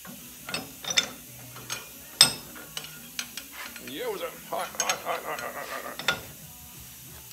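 Hand tools and metal parts being handled: a string of sharp clicks and knocks, with a rattling clatter from a little past the middle for about a second and a half.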